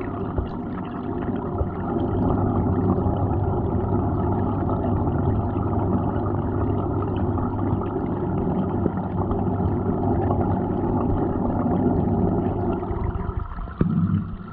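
Water splashing and gurgling down a miniature waterfall into a small cement goldfish pond, over the steady hum of the aquarium pump that feeds it. About a second before the end the sound briefly drops and there is a click.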